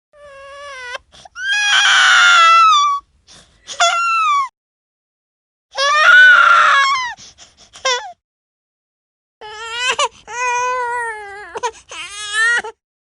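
Infant crying in loud, high-pitched cries broken by short pauses, with two silences of about a second, near five and nine seconds in, between separate crying clips.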